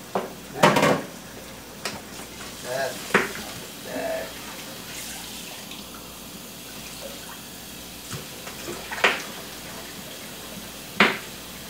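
A kitchen tap running into the sink, with a few sharp knocks of things being handled at the sink.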